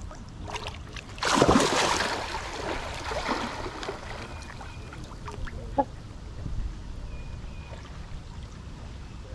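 A loud splash of water about a second in, fading into lighter splashing over the next two seconds, as waterfowl move on the river.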